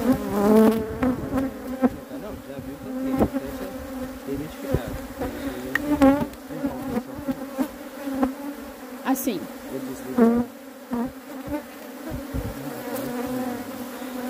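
Honeybees buzzing around an opened hive: a steady hum of many bees, with single bees passing close by in rising and falling whines. A few sharp knocks come through it.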